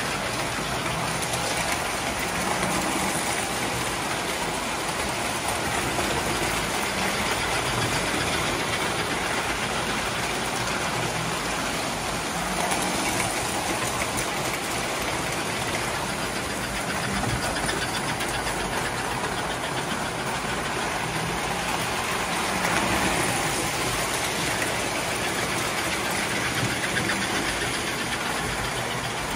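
Several O-gauge toy trains running together on three-rail tinplate track: a steady mix of electric-motor whir and metal wheels clattering on the rails.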